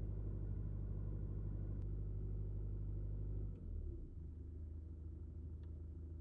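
Mazda3 engine idling with a steady low hum at a raised idle speed, the owner learns the engine is running its purification cycle. About three and a half seconds in the note drops and turns quieter as the idle settles lower.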